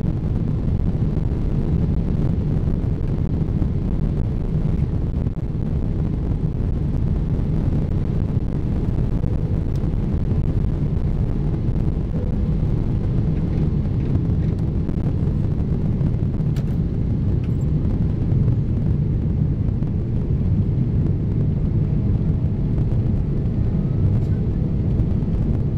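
Jet airliner at takeoff thrust, heard from inside the cabin over the wing: a loud, steady deep rumble of the engines and airflow through the takeoff roll and lift-off.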